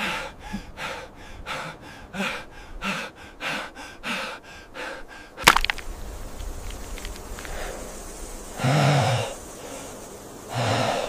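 A man's rapid, ragged gasping, about three breaths a second, as he struggles for air. About five and a half seconds in there is one sharp knock, followed by a few slower, heavier breaths.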